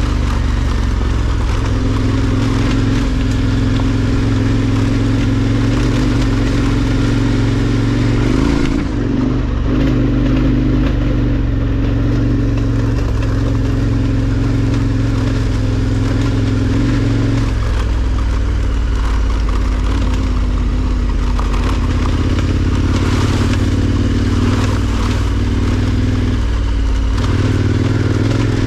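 KTM 1290 Super Adventure R's V-twin engine running steadily under way on a dirt track, its note shifting in pitch a few times as the revs change. Wind and tyre noise rush under it.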